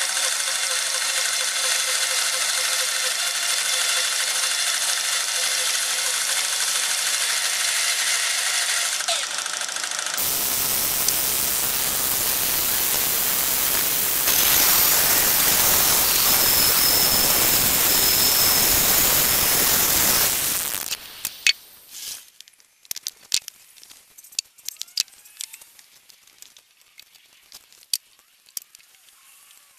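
Electric-motor band sawmill cutting through a fresh linden log: a steady high whine made of many tones. About ten seconds in it changes to a rougher, louder noise across all pitches, and around twenty seconds in this stops, leaving quiet with scattered clicks and knocks.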